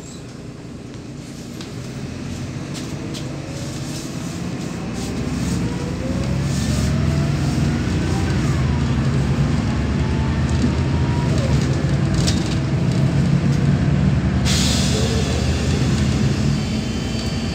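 Interior of a city bus accelerating: the MAN D0826LOH17 six-cylinder diesel building up and growing louder, with the ZF 5HP500 automatic gearbox whining in several rising sweeps as it climbs through the gears. A sudden hiss comes in near the end.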